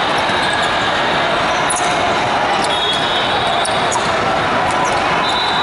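The loud, steady din of basketball play in a large hall: balls bouncing, sneakers squeaking and a blend of many voices. A high steady tone sounds for a second or two twice, around the middle and near the end.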